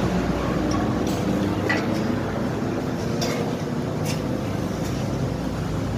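Steady low rumble of site and traffic background noise, with a few light, sharp metallic clinks scattered through it.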